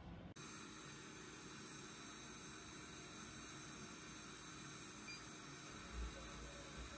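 Hutt DDC55 window-cleaning robot's suction fan running steadily, a faint hiss with a thin whine. Low thuds come about six seconds in.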